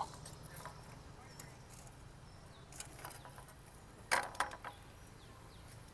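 Light metallic clinks and rattles from a wire grill basket being handled as a grilled fish is lifted out of it. A few soft clicks come first, then a louder short cluster about four seconds in.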